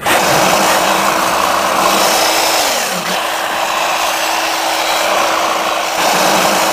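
Workshop power tool motor running steadily with a harsh, even whine that dips briefly in pitch about three seconds in.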